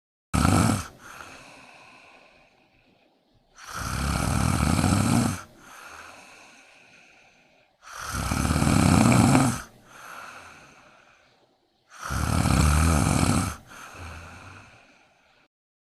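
Sleeping kitten snoring: four loud snoring breaths about four seconds apart, each trailing off into a softer, fading breath.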